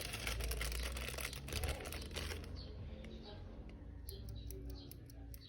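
Plastic packaging crinkling as it is handled for about two and a half seconds, then a few separate clicks.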